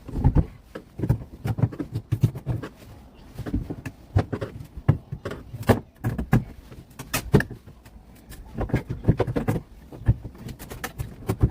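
Irregular knocks, clunks and rattles of timber and fittings being handled and knocked loose while the old supports are stripped out of a boat's cabin.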